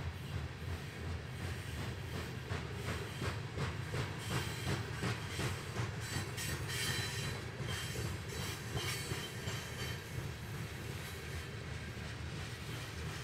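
Freight train of covered hopper cars rolling past: a steady low rumble with wheels clicking over the rail joints, and a faint high wheel squeal around the middle.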